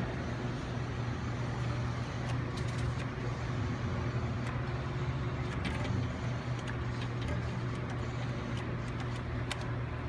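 Steady low hum of arcade machines, with scattered faint clicks.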